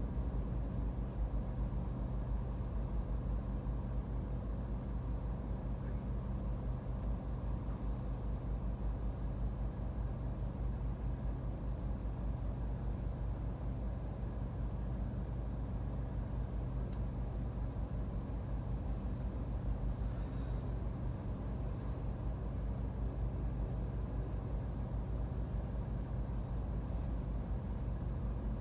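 Steady low hum inside a car's cabin while it sits stopped in traffic with the engine idling.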